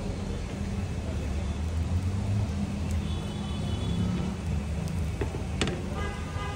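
Outdoor street ambience: a steady low rumble, with a few light clicks about five seconds in.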